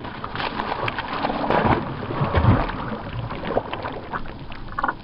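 A hooked bass jumping and thrashing at the water's surface, with irregular splashes and sloshing water.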